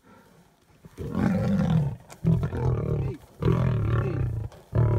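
Male lions growling and roaring while fighting a buffalo. After a quiet first second come four loud, low bursts of about a second each, with short breaks between them.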